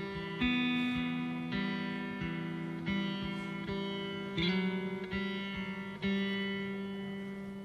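Background music: a slow guitar melody, plucked notes ringing on, a new note or chord struck about every three-quarters of a second.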